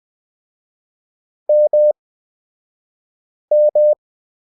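Morse code practice tone, a steady mid-pitched beep, sending the letter M (dah-dah) twice, about two seconds apart, at 20 WPM character speed with long Farnsworth gaps between letters.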